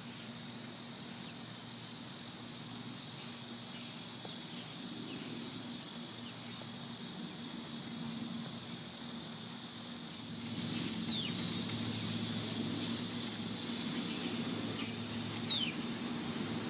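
Steady high-pitched insect drone that weakens about ten seconds in, over a low steady hum. Later, two short falling peeps from the young chickens and a few light clicks.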